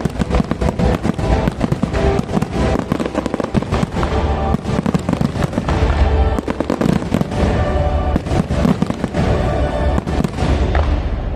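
Fireworks display with rapid, dense bangs and crackles, over music played for the show.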